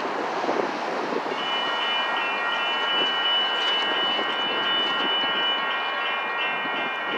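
Railroad crossing warning bell starting up about a second in and ringing in rapid, even strokes as the crossing signals activate for an approaching train, over steady traffic noise.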